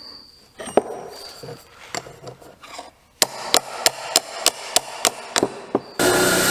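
A series of sharp metal taps, about three a second, at the stripped steel tang of a knife on a workbench. About six seconds in, a bench grinder's wire wheel starts brushing rust off the tang, a steady loud rasping that is the loudest sound here.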